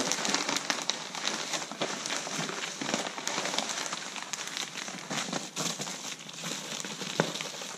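A plastic padded mailer, a paper sheet and bubble wrap crinkling and rustling as they are handled and unwrapped: a busy run of small crackles.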